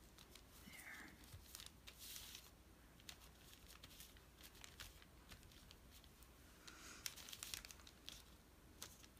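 Faint paper rustling and light crinkles, with scattered small clicks and taps, as hands press and smooth paper and lace pieces onto a paper tag.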